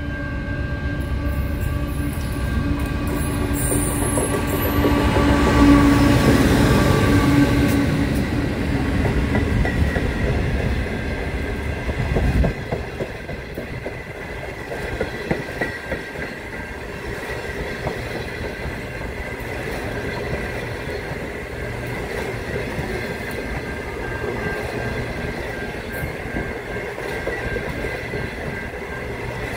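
The Indian Pacific's diesel locomotive passes with a deep rumble, loudest about six seconds in. Its stainless-steel passenger carriages then roll by with a steady rolling clatter of wheels over the rail joints.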